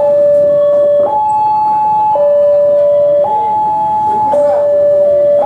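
Railway level-crossing warning alarm sounding a two-tone electronic signal, switching between a low and a higher tone about once a second. It signals that a train is approaching and the crossing barriers are closing.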